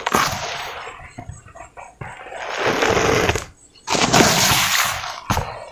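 Hands crushing and rubbing dry cement powder and crumbled cement balls in a metal basin, making gritty crunching and swishing. There are three main bursts, at the start, about halfway through and near the end, with quieter crackling between them.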